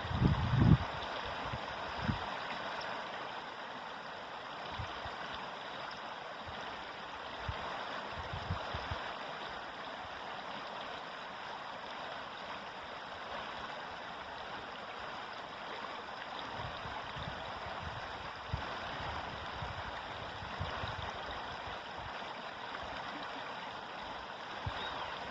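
River water flowing in a steady rushing stream, with scattered brief low gurgles or bumps; the loudest comes right at the start.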